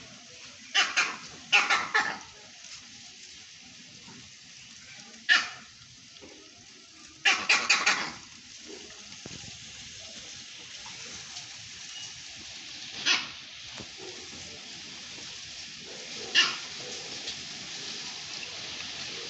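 A dog barking in scattered bouts: three barks about a second in, one near five seconds, a quick run of four at about seven seconds, then single barks near thirteen and sixteen seconds.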